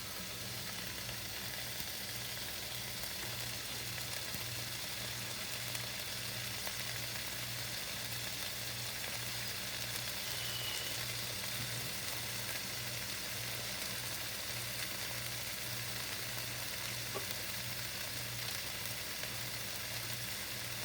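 Chicken breasts searing in a frying pan, a steady sizzle, with a steady low hum underneath.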